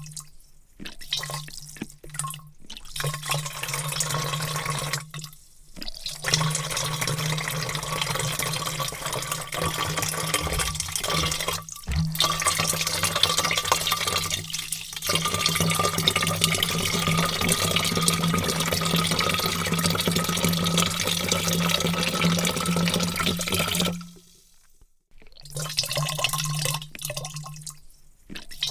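Water pouring in a heavy, continuous stream into a vat, stopping for short breaks several times, the longest near the end.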